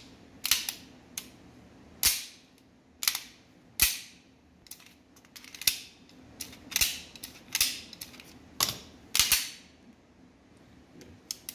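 Action of a freshly cleaned and reassembled Beretta 92 pistol being worked by hand: about a dozen sharp metallic clacks, roughly one a second, from the slide, hammer and magazine as its function is checked.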